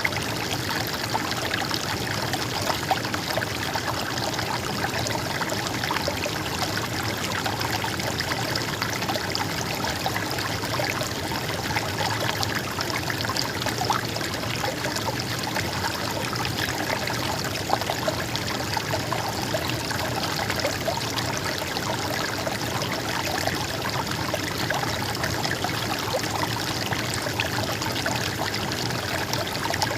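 A stream flowing and babbling steadily, an even rush of water with fine trickling detail.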